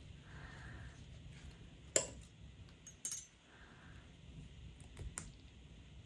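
Faint clicks and clinks of thin 20–22 gauge craft wire being pulled through and wrapped around a small wire-and-bead pendant. The loudest click comes about two seconds in, then two quick clicks about a second later and two more near the end.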